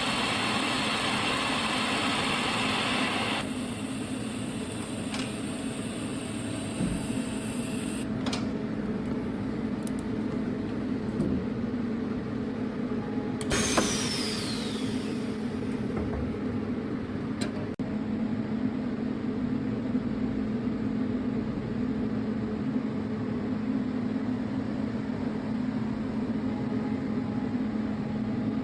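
Automatic straight seam welding machine running with a steady machine hum. A hiss on top of the hum drops away about three seconds in, and there is a single sharp click about halfway through.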